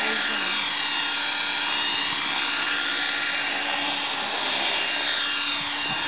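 RC model helicopter hovering low just above the grass: a steady whine of its motor and spinning rotors, with the high pitch shifting slightly as it moves.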